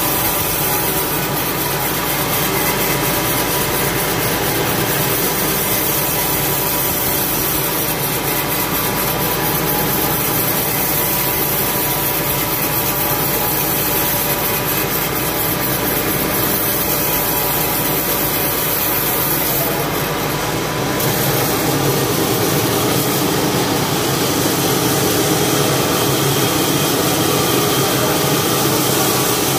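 Band sawmill cutting lengthwise through a cempedak log to take off a wide slab. The blade makes a steady, loud sawing noise through the wood, with the machine's motor running underneath; the sound shifts slightly about twenty-two seconds in.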